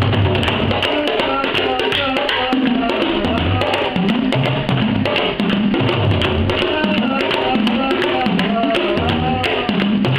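Two bodhráns played together with tippers in a fast rhythmic duet, with rapid continuous strokes. The deep drum tone slides up and down as the players press the backs of the skins.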